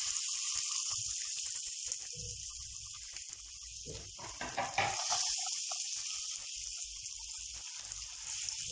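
Sliced raw potatoes sizzling in hot oil in a frying pan, a steady hiss with scattered small crackles and a brief knock a little before the middle.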